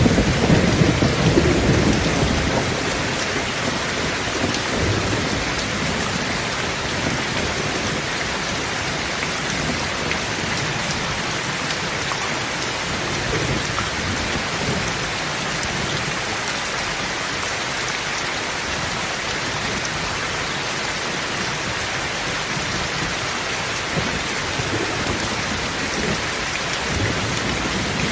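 A thunderstorm: steady rain falling, with a low roll of thunder dying away in the first few seconds and faint distant rumbles later on.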